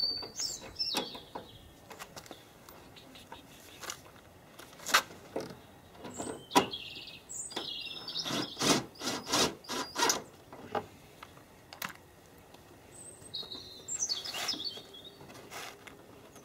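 Small birds chirping in short high phrases, over a run of sharp clicks and knocks as plastic wheel-arch trim and fasteners are handled and fitted by hand. The loudest are two sharp clicks about five and six and a half seconds in.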